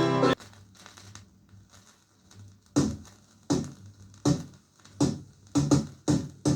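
The last held note of a sung folk song cuts off just after the start, leaving faint record surface noise. About three seconds in, a beat of sharp percussive knocks begins, coming steadily and getting quicker: the opening of the next folk track on the 7-inch single.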